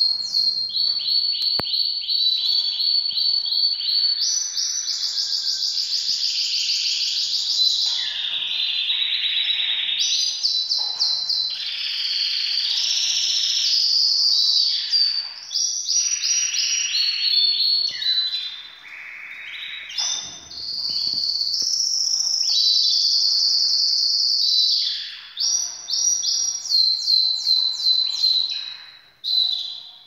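Caged canaries singing without a break: fast high trills, rapid runs of repeated notes and long rolling phrases. This is the full song of birds in breeding condition.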